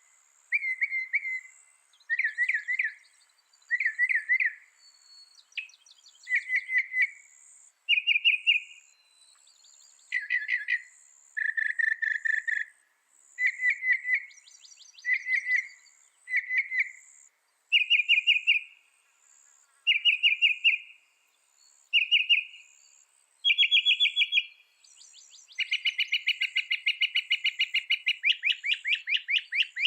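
Mockingbird singing: a string of short, varied phrases, each a quick run of repeated chirps lasting about a second with brief pauses between, ending in a longer rapid trill of several seconds.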